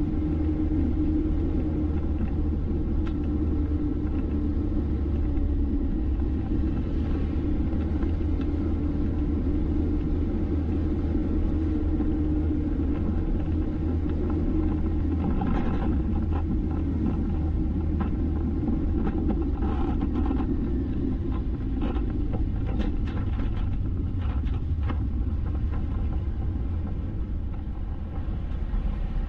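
Steady low rumble of a vehicle driving along a road: engine and tyre noise, with a scatter of brief clicks in the second half.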